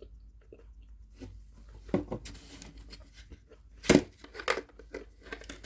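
Plastic snack wrapper being handled and torn open: scattered crinkling with a few sharp cracks, the loudest about four seconds in.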